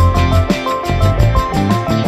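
Background music: a melody of short stepped notes over a strong bass line, with regular beats.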